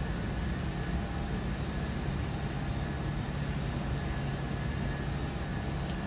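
Panasonic FSV-EX VRF outdoor units running steadily in heat mode: an even rush of fan noise over a constant low hum.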